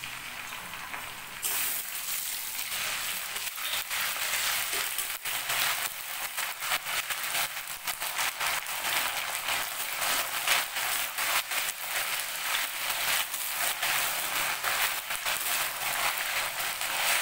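Onions, bay leaves and dried chillies sizzling in hot mustard oil in a steel kadai. The sizzle jumps louder about a second and a half in as ginger paste is dropped in, then keeps up a crackling fry as the mix is stirred with a metal spatula.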